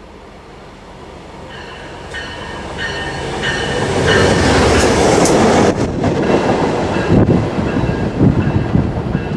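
A pair of Amtrak diesel locomotives, a GP15 and a GP38H-3, running at speed toward and past the platform. The sound grows steadily louder to a peak about four to six seconds in. After that come rhythmic clacks of the wheels over the rail joints.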